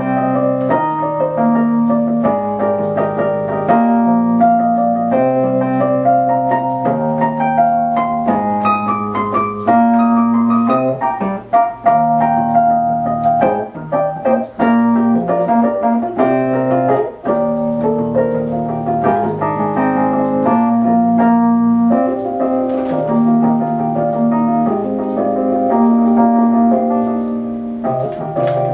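Wurlitzer EP200 electric piano played without vocals: chords and melody notes over a low bass line that shifts between a few notes every second or two.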